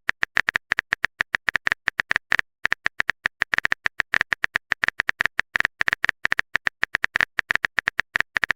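Phone keyboard typing sound effect: a rapid, uneven run of short, bright clicks, about eight to ten a second.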